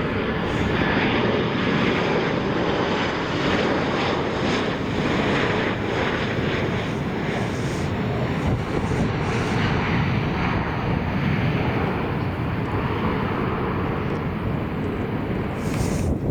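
Aircraft engines running loud and steady: an even rush of noise with no clear change in pitch.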